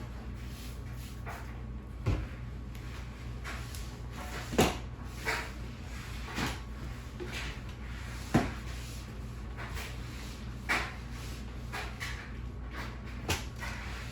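About eight irregular knocks and clunks, a second or two apart, over a steady low hum.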